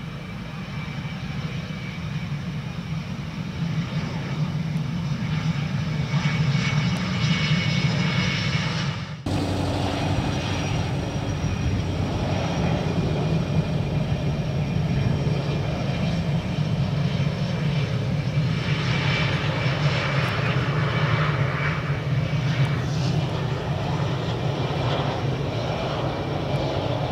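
RAAF F/A-18 Hornet's twin jet engines running as the fighter rolls along the runway: a steady jet rumble with a high whine, growing louder over the first few seconds and cutting sharply about nine seconds in before carrying on.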